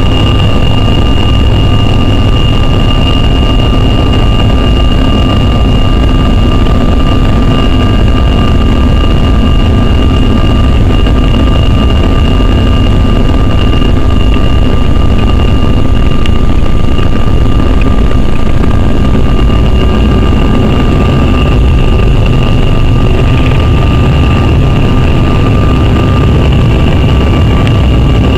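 Canadair CRJ700's twin rear-mounted GE CF34 turbofan engines at takeoff power, heard inside the cabin: a loud, steady rumble with a steady high fan whine over it, through the takeoff roll and lift-off. The low rumble eases a little in the last few seconds.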